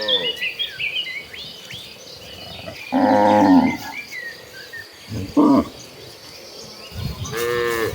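Cattle mooing: a long low moo about three seconds in, a short one about five and a half seconds in, and another starting near the end. Birds chirp in the background.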